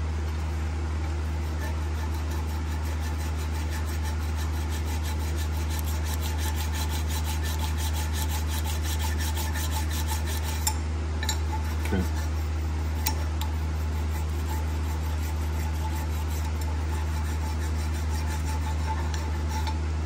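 Small metal file rasping back and forth in the pad-clip seats of a steel brake caliper bracket, scraping out rust and crust. The strokes repeat steadily, with a few sharp clicks about halfway through, over a steady low hum.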